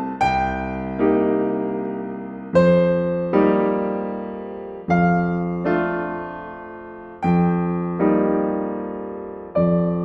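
Slow, gentle background piano music: chords struck every second or two and left to ring out and fade.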